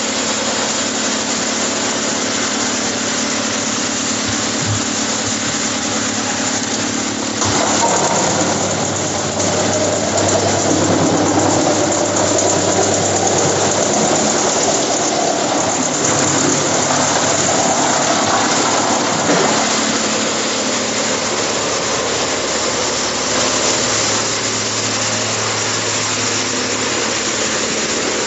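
Industrial wood chipper line running, its electric drive motors and chip conveyors giving a loud, steady machine noise. The noise grows louder and rougher from about seven seconds in until about twenty seconds, then settles back.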